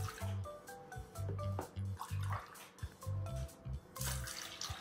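Milk poured from a glass into a stainless-steel pot, splashing into the milk already there, with a louder burst of pouring near the end, over background music with a steady bass beat.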